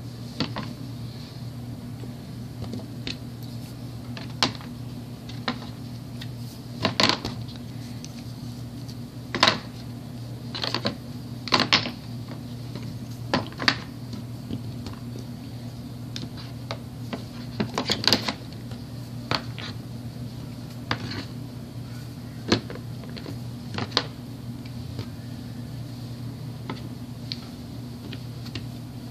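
Wood-mounted rubber stamps being picked up and stacked by hand: irregular clacks and knocks of the wooden blocks, over a steady low hum.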